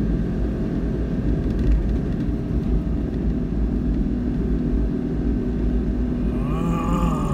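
Steady road and engine rumble of a moving car, heard from inside the cabin. Near the end a man's voice sounds briefly.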